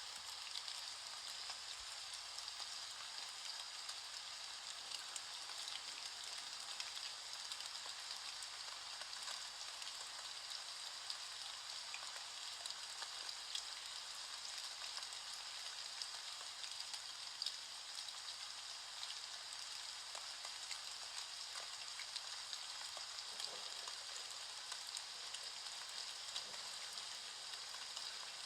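Rain falling steadily: an even hiss of many small drop ticks.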